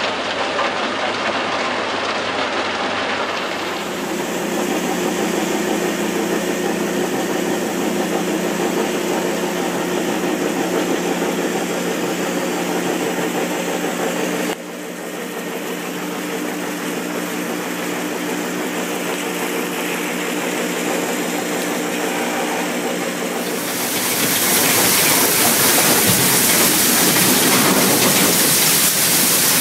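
Industrial recycling conveyors and separators running: a steady mechanical hum and rattle that changes abruptly as the shot changes. An eddy current separator runs a belt of ground PET flakes, and from about 24 s a cleated grinder feeder conveyor gives a louder rushing hiss.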